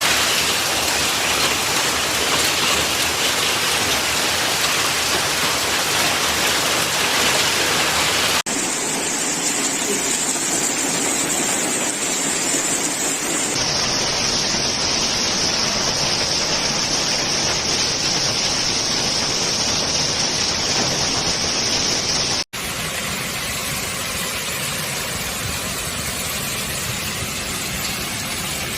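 Heavy rain pouring down, a loud steady hiss, heard across several clips joined by three abrupt cuts.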